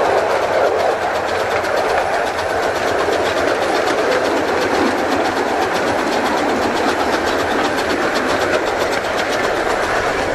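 A 15-inch gauge live steam train running steadily along the track: a constant rushing noise with a fast, even ticking of several beats a second.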